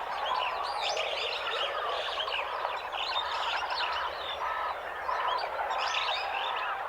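African jungle ambience: a dense, steady chorus of many birds chirping and calling at once.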